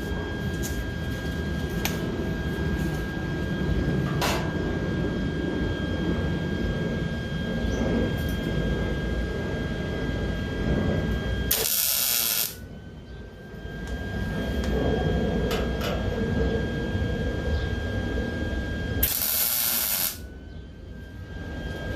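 Welder tack-welding sheet steel: a steady crackling buzz that breaks off twice, about twelve and twenty seconds in, each time just after a short loud hiss.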